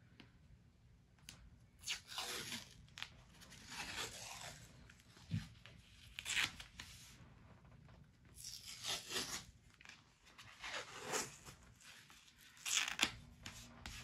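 White athletic tape being pulled off the roll and torn in a series of short rips, about six of them, roughly one every two seconds, as strips are laid on to fill gaps in an ankle taping.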